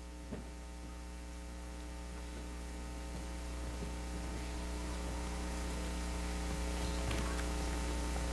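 Steady electrical mains hum with a stack of even overtones, growing slowly louder, with a single soft click about half a second in.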